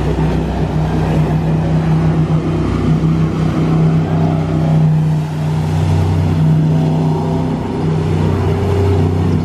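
Speedboat engine running hard as the boat races and turns across the water, a loud steady drone whose tone shifts about halfway through, when a deeper note joins it.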